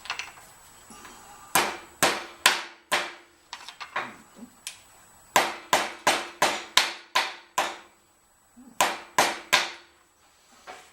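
Hammer blows on metal in three quick series, about four, then nine, then four sharp strikes, each with a short ring, flattening the brass end of a pressure hose.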